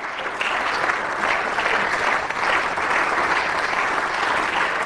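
Members of a parliament applauding: dense, steady clapping from many hands that breaks out all at once.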